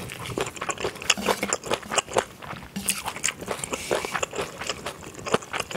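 Close-miked chewing of spicy jjolmyeon noodles tossed with raw shredded vegetables, heard as a quick, irregular run of crunches.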